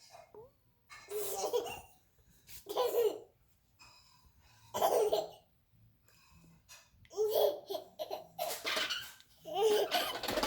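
Baby laughing in a series of short bursts, about six bouts with pauses between them.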